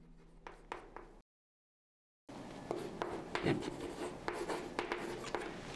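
Chalk writing on a blackboard: scratching and tapping strokes as words are written out. The sound cuts out completely for about a second, a little after the start, then the chalk strokes resume, somewhat louder.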